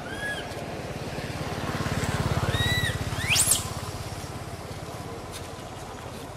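A low, fast, even engine-like pulsing swells up and fades away around the middle, as of a motor passing. Over it come a few short high arched calls and one quick, steeply rising whistle, the loudest moment.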